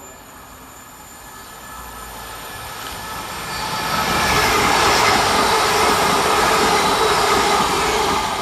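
TransPennine Express Class 397 electric multiple unit approaching and running past the platform. Its wheel-on-rail noise builds over the first four seconds, then stays loud and steady.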